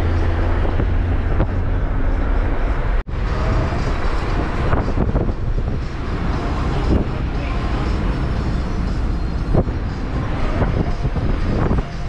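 Road noise from inside a moving car: a steady low rumble of engine and tyres with a hiss of wind and passing traffic. The sound cuts out for an instant about three seconds in, then carries on the same.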